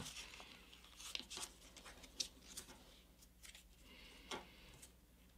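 Faint, scattered rustles and soft clicks of a folded sheet of paper, a paper airplane, being handled and pressed by hand as its winglet is lined up for folding.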